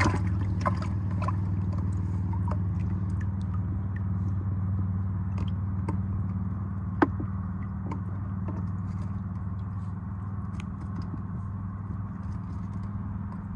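Steady low hum of a boat motor running, with small clicks and scrapes of fishing tackle being handled while a hook and stone rig is set up. One sharper click comes about seven seconds in.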